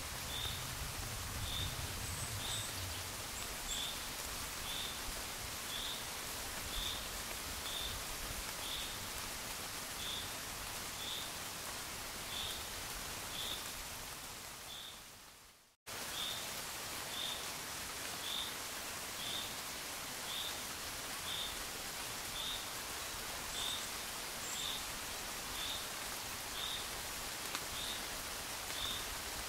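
Steady rain hiss with a short high chirp about once a second. About halfway through, the rain fades away, drops out for an instant, then starts again at full level: a loop seam in the rain recording.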